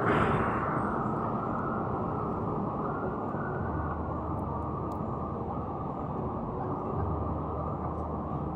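Steady outdoor city background noise with the rumble of traffic, briefly louder at the very start.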